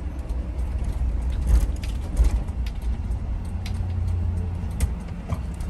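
Low rumble of engine and road noise heard from inside a moving vehicle's cabin, with a few light clicks and rattles.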